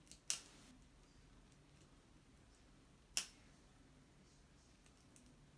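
Dog nail clippers snipping through a dog's toenails: two sharp clicks about three seconds apart, with near silence between them.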